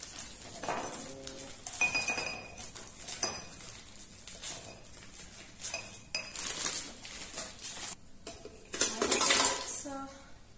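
Frozen strawberries clinking and knocking as they drop one after another into a drinking glass. A little before the end the glassful is tipped into a plastic blender jar, the loudest rush of rattling.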